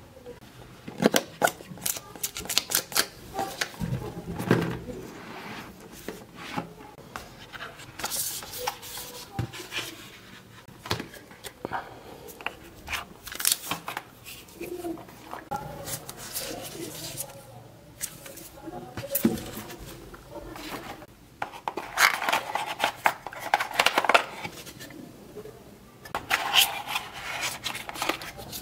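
Cardboard phone box and its paperboard inserts being handled: sliding, scraping and rustling, broken by sharp clicks and taps as pieces are set down on a table.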